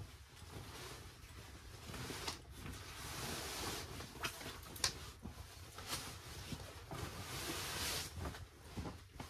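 Rustling and swishing of a nylon sleeping bag as it is pulled out and lifted, with a few light knocks and clicks.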